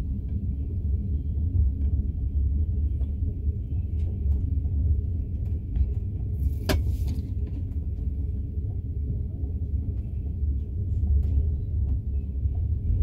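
Steady low rumble of a passenger train running, heard from inside the carriage, with one sharp click and a short hiss about halfway through.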